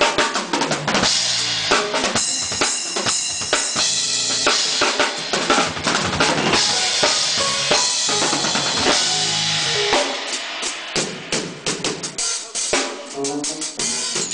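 Full drum kit played live with kick drum, snare and Sabian HHX cymbals in a busy gospel groove, with held organ chords underneath. The playing thins to more separate hits in the last few seconds.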